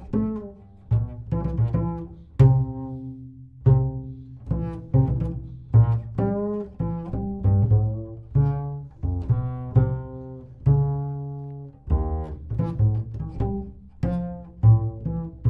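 Solo double bass played pizzicato: a run of plucked notes at changing pitches, each with a sharp attack that rings and fades.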